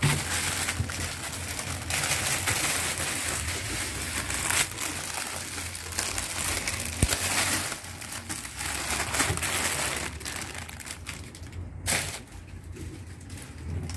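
Plastic packaging crinkling and rustling as hands open a clear plastic bag and pull a garment out. It is dense and crackly for most of the stretch, with a few sharp crackles, and dies down in the last couple of seconds.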